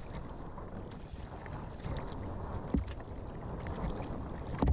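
Sea kayak paddle strokes dipping and splashing in choppy water, with wind rumbling on the microphone.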